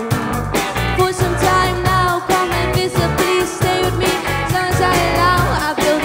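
A live pop-rock band playing: a woman singing lead into a microphone over electric guitar, bass and a steady beat.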